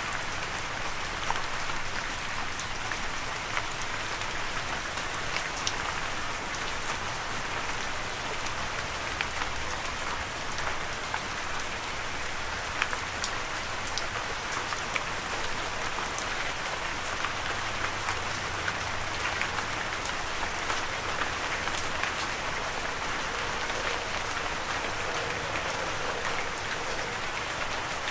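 Steady rain falling, an even hiss scattered with the ticks of single drops striking a surface.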